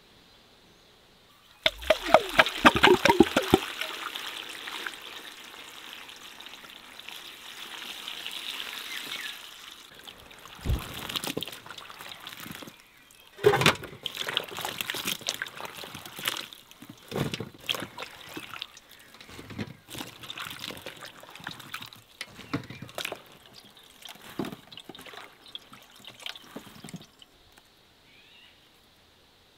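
Water pouring into a metal basin, then hands sloshing and swirling strawberries in the water, with irregular splashes.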